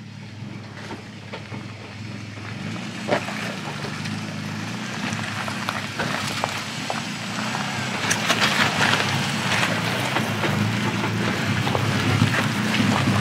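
Nissan Patrol 4WD engine running at low speed as it crawls over a rocky track, getting louder as it comes close and passes, with tyres crunching and cracking over loose stones and rocks.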